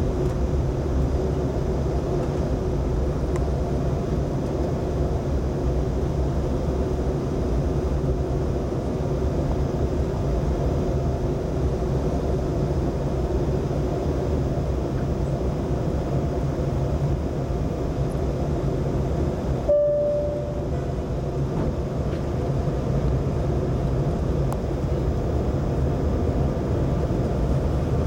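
Steady low rumble of an airliner heard from inside the cabin during descent: engine and airflow noise. About two-thirds of the way through there is a momentary break with a short single tone.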